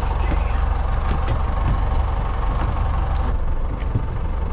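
Boat engine idling steadily, a low even hum, with a few light knocks from the hoop net and gear being handled on deck.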